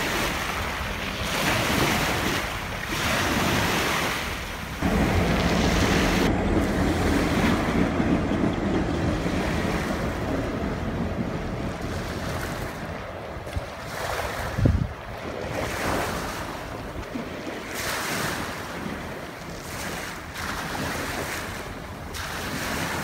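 Small waves washing onto a gravel beach, with wind buffeting the microphone. For several seconds after a cut about five seconds in, a low steady engine hum, the passing locomotive's diesel, runs underneath. A single sharp bump comes near the middle.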